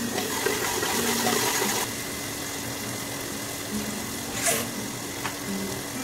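Hot oil and ghee sizzling in a pressure cooker over a steady hum. The sizzle is louder for about the first two seconds, and a short, sharper burst of sizzle comes about four and a half seconds in. Soft background music plays underneath.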